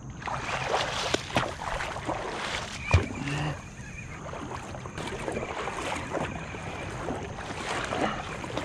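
Water splashing and churning as a hooked snook thrashes at the surface beside a kayak, with a sharp knock about three seconds in.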